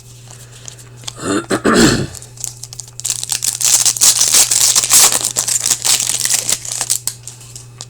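Foil wrapper of an Upper Deck hockey card pack being torn open and crinkled: a dense crackle starting about three seconds in and lasting about four seconds. Before it, a brief vocal sound.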